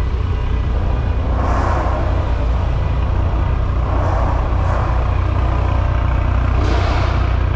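Ford Mustang idling through an aftermarket exhaust with carbon tips: a steady deep rumble, with a few brief rushing swells over it.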